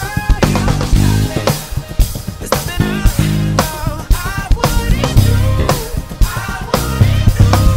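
Acoustic drum kit playing an upbeat pop groove, with kick, snare and rimshot strokes on a steady beat, locked with an electric bass guitar holding low notes. A sliding melodic line runs over the top of the groove.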